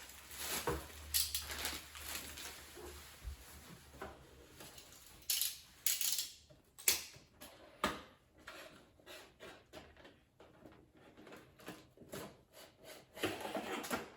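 Computer parts and their packaging being handled and set down: scattered clicks and knocks, a few sharper knocks between about five and eight seconds in, then lighter ticking and a burst of rustling near the end.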